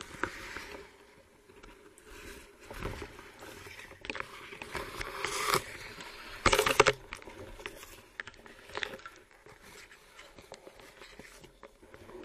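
Muffled water noise from a camera in a waterproof housing during spearfishing in shallow reeds: irregular swishes and scrapes, with the loudest burst about six and a half seconds in.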